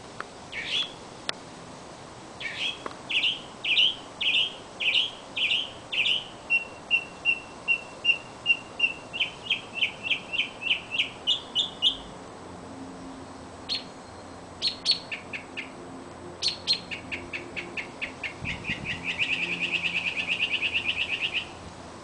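Small songbird singing loud, repeated high notes. Its first song starts at about two notes a second, then speeds into a faster trill. After a pause and a few scattered notes, a second song runs into a rapid, buzzy trill.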